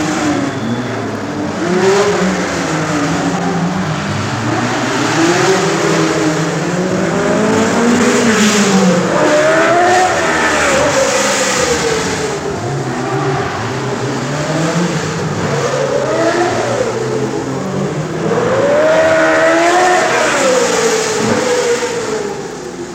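A stream of 1967 Formula One cars taking a tight hairpin one after another, their engines dropping in pitch as they slow and rising again as they accelerate away, several cars overlapping at once.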